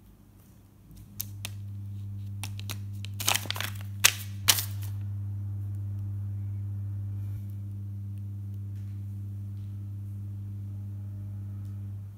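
A steady low hum that comes in about a second in and cuts off near the end, with a cluster of sharp crackles of a paper instruction sheet being handled a few seconds in.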